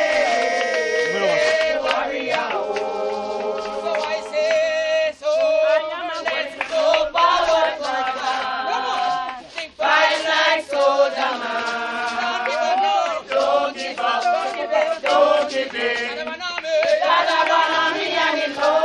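A crowd of mourners singing a gospel song together in chorus, many voices of men and women.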